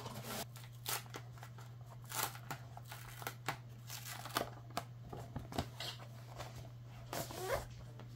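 Protective wrap being peeled and slid off a new tablet by hand: irregular soft crinkles and rustles, over a steady low hum.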